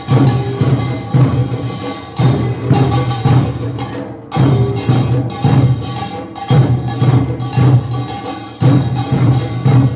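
Korean nongak farmers' band percussion, with small gongs and drums struck together in a fast, dense rhythm. There is a brief break about four seconds in.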